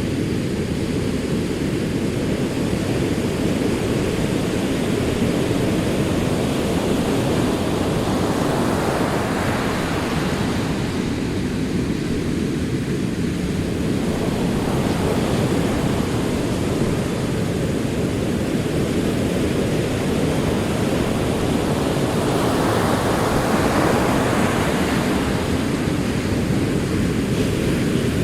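Ocean surf: a steady low rush of rolling waves, with a wave breaking and washing in about nine seconds in and another about twenty-three seconds in, each bringing a brighter hiss that swells and fades.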